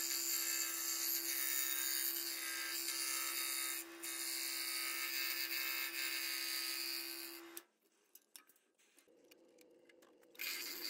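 Scroll saw running and cutting a circle in 1/4-inch birch plywood with a fine #5 blade: a steady motor hum with a hiss of the blade in the wood. It stops abruptly about three-quarters of the way through, and a fainter sound returns shortly before the end.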